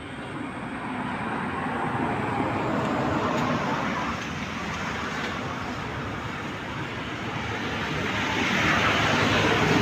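Rushing vehicle noise that swells over a few seconds, eases, and grows louder again near the end; no clear birdsong stands out.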